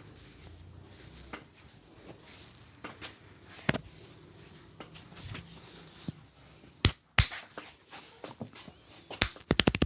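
A barber's hands striking a client during a massage: scattered pats and clicks, two sharper ones about seven seconds in, then a fast run of chopping slaps that starts near the end.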